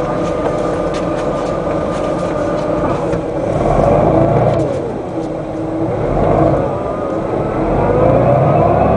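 Den Oudsten Alliance B96 city bus's diesel engine and ZF automatic gearbox heard from inside the bus during a kickdown: after a few seconds of steady running, the engine revs climb sharply, then fall and climb again as the bus accelerates hard through the gears.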